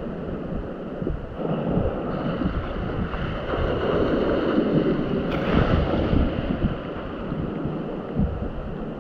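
Wind buffeting the microphone over sea waves washing, with the wash swelling through the middle. There is one short sharp tick about five seconds in.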